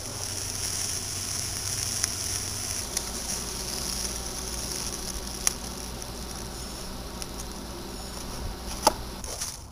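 Eggs sizzling in a cast iron skillet over a brick rocket stove: a steady high hiss with a few sharp pops.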